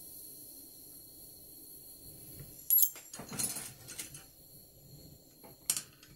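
Flameworking torch burning with a low steady hiss while a clear glass rod is heated in its flame. Several sharp glassy clinks of glass rods knocking together start about three seconds in, the loudest near three seconds and again near the end.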